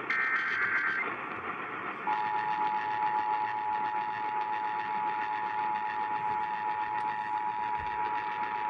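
Emergency Alert System tones received over a radio with noisy reception. A screechy SAME header data burst ends about a second in. About two seconds in, the two-tone EAS attention signal starts and holds steady over radio static.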